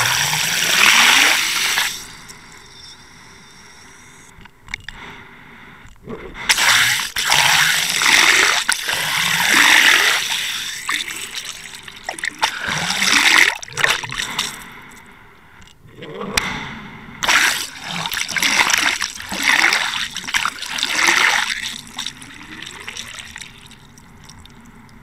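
Water rushing and splashing around a camera towed underwater behind a trolling boat, in irregular loud surges with quieter stretches between them.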